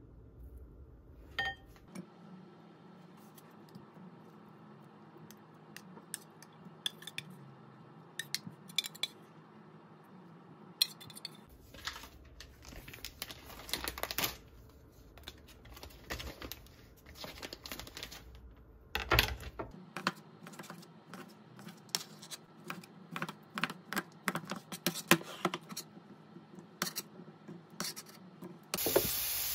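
Kitchen food-prep sounds: irregular clicks and taps of a knife cutting soft cubed meat on a plastic cutting board, with packaging being handled and utensils knocking against a ceramic bowl. A steady sizzle of frying comes in just at the end.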